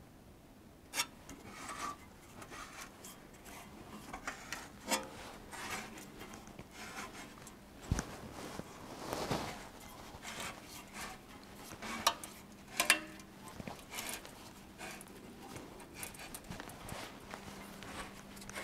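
Sheet steel being slid and positioned in a bending brake: scattered scraping and rubbing of metal on metal, with a few sharp clicks and knocks, the loudest about a second in, near the middle, and twice close together later on.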